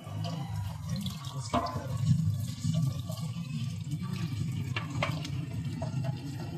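Water running and splashing over a steady low rumble, with two sharp knocks, one about a second and a half in and one near five seconds.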